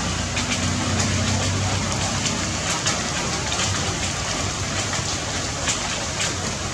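Rain falling: a steady hiss with scattered sharp drop ticks. A low engine-like hum sounds underneath and fades out about two seconds in.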